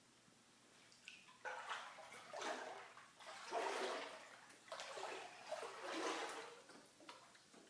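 Water sloshing and rushing in a few irregular surges, each swelling up and dying away within a second or so.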